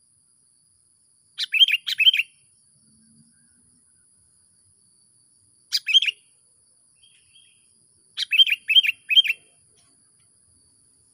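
A decoy songbird calling lively, in three short bursts of quick, bouncing chirps: about four notes roughly a second and a half in, two or three near the middle, and four or five more near the end.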